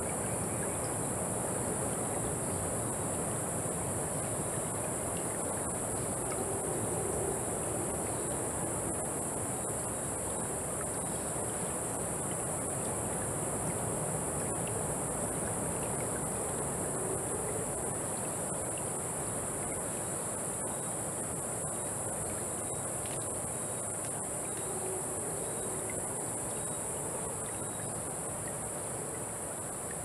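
Rainforest ambience: a steady high-pitched insect drone over the even rush of a running stream, with a few faint calls now and then.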